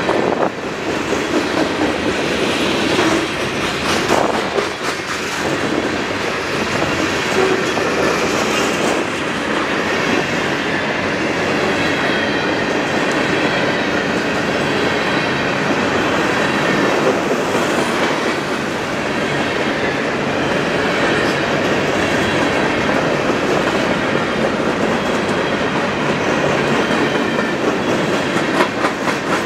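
A train rolling past, its steel wheels running and clattering steadily over the rails.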